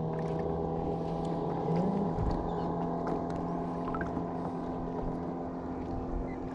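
Electric trolling motor humming steadily as several even tones, with a brief shift in pitch about two seconds in.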